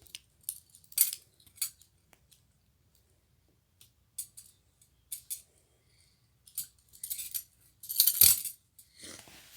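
Metal handcuffs and shackle chain clinking and rattling as they are handled: scattered sharp clinks, with a louder jangle about eight seconds in.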